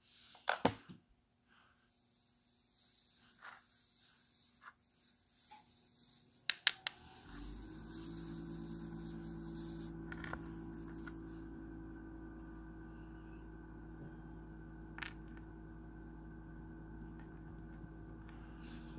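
Light plastic clicks and taps from a slime container and a small glitter vial being handled, the loudest under a second in and a cluster about six and a half seconds in. About seven seconds in, a steady low hum starts and keeps on under a few more scattered clicks.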